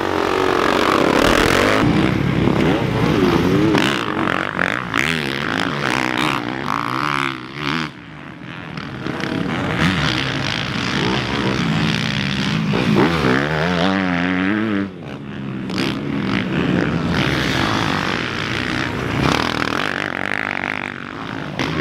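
Several motocross dirt bikes racing, their engines revving up and down with the throttle.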